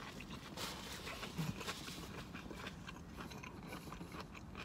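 Faint close-up chewing of a bite of pickle: small crunches and mouth clicks.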